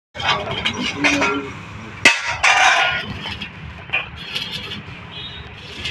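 Car repair work: metal clinks and knocks, with a sharp knock about two seconds in.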